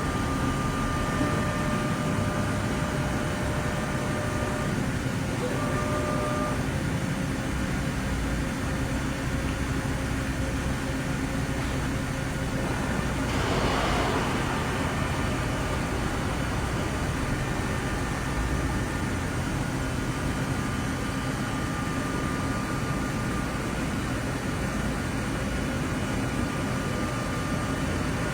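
Ikegai TNC-75 CNC lathe running under power: a steady mechanical hum with faint whining tones, and a brief rushing swell about halfway through.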